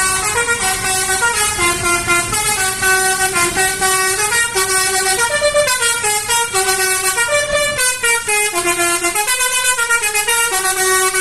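Bus 'telolet' multi-tone air horn playing a quick melody of changing notes, two to three notes a second, loud and without a break.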